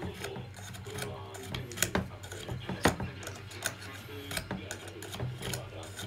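Small hand tool clicking and scraping against the metal motor housing of a Miele S381 vacuum cleaner, with irregular sharp clicks over a low steady hum.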